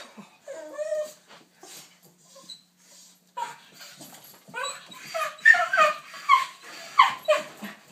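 A dog whining and screaming in excitement over going for a walk: a few short whines, then from about halfway a rapid string of loud, high-pitched yelping screams.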